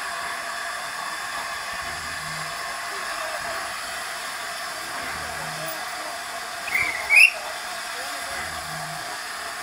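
Steady hiss of steam from LNER A4 locomotive 60009 as it moves slowly out with its train, heard from a carriage window. A brief high squeal about seven seconds in.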